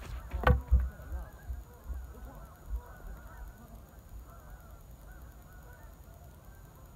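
A single sharp knock about half a second in, from the wiffleball play just after the hit, followed by a low rumble for a second or two. Faint, short honking calls sound in the distance through the rest.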